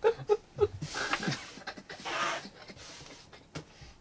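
Breathy, panting laughter: a few short laughing pulses in the first second, then two long breathy swells, dying away after about three seconds.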